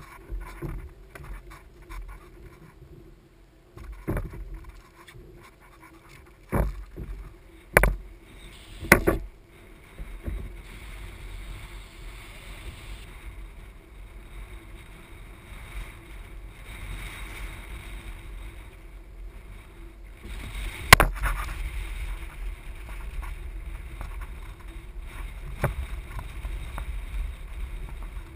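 Ocean water lapping and sloshing against a plastic sit-on-top kayak hull, a steady low wash. Several sharp knocks from gear being handled on board stand out, a cluster a few seconds in and a louder one about two-thirds of the way through.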